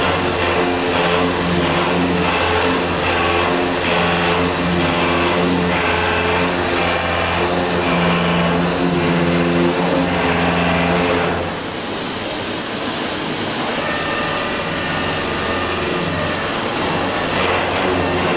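The milling spindle of a Parpas TMT50 head cuts a pocket into a clamped metal block with a long end mill, making a steady machine hum with a fine rapid chatter. About two-thirds of the way through, the low hum drops away and the sound gets a little quieter as the cut changes.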